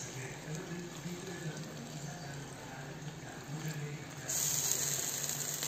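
Coconut milk poured from a bowl into a pan of taro leaves, heard as a rush of liquid starting about four seconds in and lasting just over a second.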